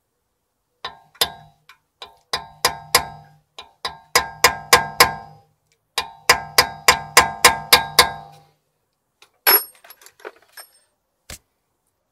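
Steel hammer striking a punch to drive out the rusted-in, seized pad-retaining pins of a rear brake caliper: two runs of quick, ringing metallic blows, about three a second, then a single sharper clank and a few light clicks near the end.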